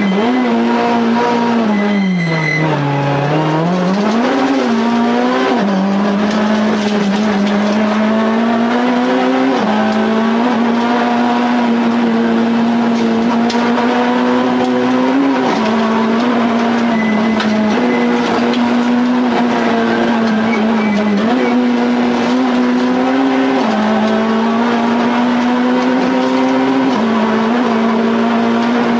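Citroën C2 R2 Max rally car's engine, heard from inside the cabin, run hard at high revs at full stage pace. The pitch drops deeply about two to three seconds in and climbs back, then holds high with brief dips every few seconds.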